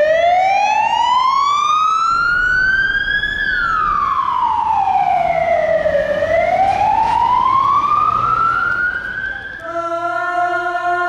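Police van siren in a slow wail: it rises for about three seconds, falls for about three, then rises again, over traffic noise. Music takes over near the end.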